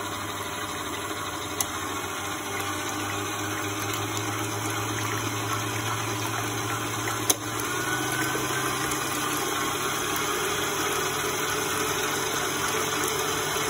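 Stand mixer running, its wire whisk beating liquid egg whites in a stainless steel bowl: a steady motor hum under the swish of the whisk through the whites. A sharp click comes about seven seconds in, and the hum then rises a little in pitch and loudness as the speed is turned up.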